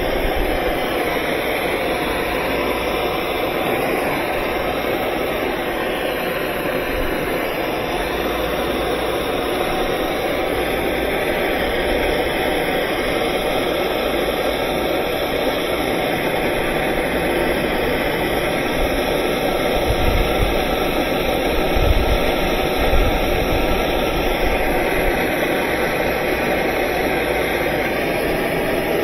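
Propane torch running with a steady rushing hiss as hot melt patch compound is melted onto a plastic washer tub. A few low bumps come about two-thirds of the way through.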